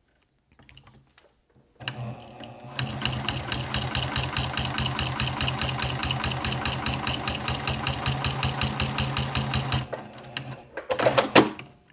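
Juki TL2010Q straight-stitch sewing machine topstitching leather with heavy Tex 69 thread. It starts about two seconds in, picks up to a steady fast stitching rhythm, and stops about ten seconds in. A few sharp clicks and handling noise follow near the end.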